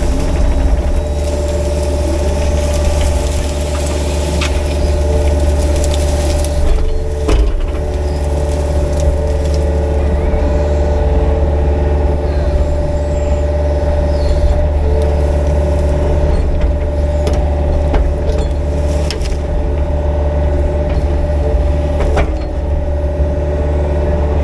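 Excavator's diesel engine running steadily under work as its rake tears through brush, vines and fence debris, with a few sharp knocks and cracks from the rake and breaking wood.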